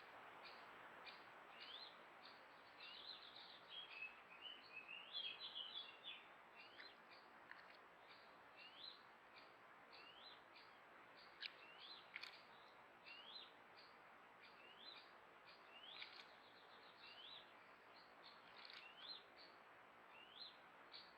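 Small songbirds calling: short, sharp notes that curve upward, repeated every second or so, with a burst of quick twittering a few seconds in. The calls are faint over the steady hiss of a trail camera's microphone.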